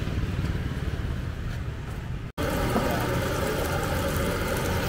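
Low street rumble of motorbike traffic. After a brief dropout about two seconds in, the steady roar of a gas wok burner under a wok of flat rice noodles.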